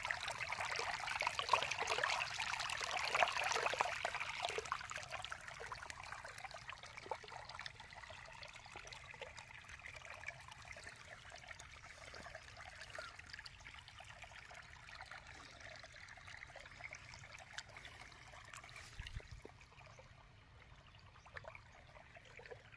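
Water trickling and running, loudest in the first few seconds, then steadier and quieter.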